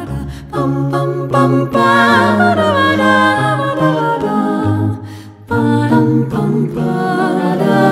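An LG Optimus G ringtone playing: a melody carried by wordless voices, with a short break about five seconds in.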